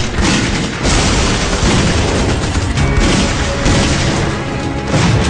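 Film battle soundtrack: explosions and gunfire mixed with a dramatic music score, dense and loud throughout.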